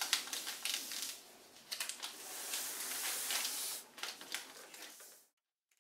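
A pen scratching across paper as a pattern line is drawn: a few short strokes, then one longer stroke of about two seconds and another short one. The sound then cuts off to silence near the end.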